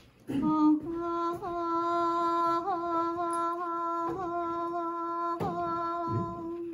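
A woman's voice chanting on one long held note, with a small turn in pitch about every second and a bit, like the syllables of a mantra.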